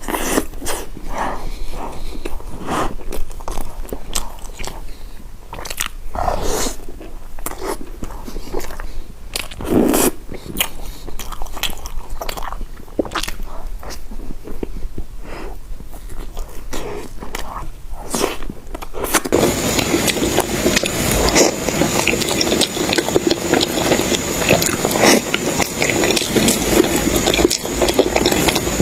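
Close-miked eating: a person biting and chewing bread, with separate wet mouth clicks and smacks. About two-thirds of the way in, the sound changes abruptly to a dense, continuous crackling with a faint steady high tone.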